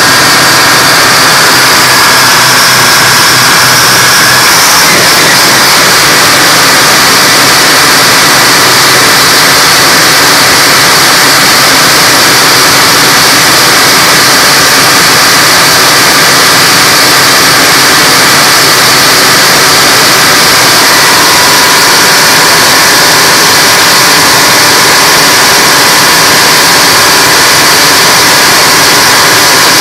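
Detroit Diesel 6-71 two-stroke inline-six diesel engine running loud and steady, its note shifting slightly about four or five seconds in.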